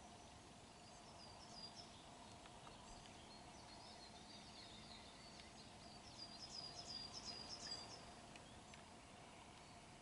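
Faint songbird song: short high chirping phrases, with a quick run of repeated notes about six seconds in, over a faint steady hum.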